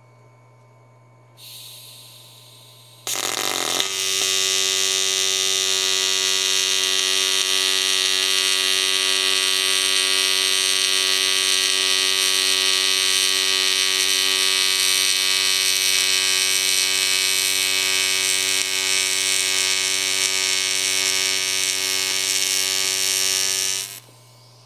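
AC TIG welding arc on aluminium, run with the adjustable amplitude turned up to about 40–45%: after a soft hiss, the arc strikes about three seconds in and buzzes steadily and loudly for about twenty seconds, then cuts off abruptly near the end. A low machine hum sits underneath throughout.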